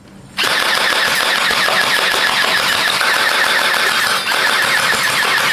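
Electric gel blaster firing continuously: a fast, steady mechanical rattle of the motor and gearbox, starting suddenly about half a second in.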